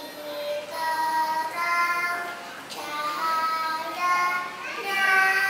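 A young girl singing solo, holding each note for about half a second to a second and gliding between them.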